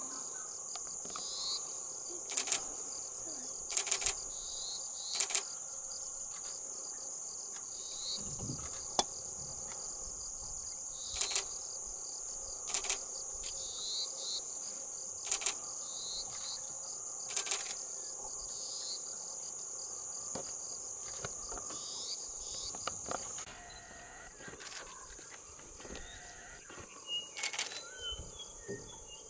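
Steady high-pitched drone of an insect chorus, with sharp clicks every second or two. About three-quarters of the way through it drops quieter, and a few short high chirps come in near the end.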